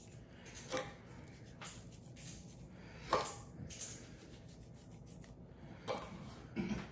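Quiet hand-handling sounds as dry rub is sprinkled by hand over raw chicken thighs on a plastic cutting board: light rubbing with a few soft taps scattered through, the clearest about three seconds in and again near the end.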